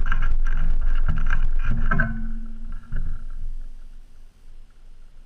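Muffled, irregular knocking and rubbing on a GoPro's waterproof housing mounted on an AR-15 as the rifle is handled and settled, dying away after about two seconds into a quiet stretch.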